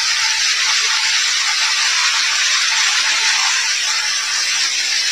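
A steady, even hiss, loud and unbroken, with no distinct events in it.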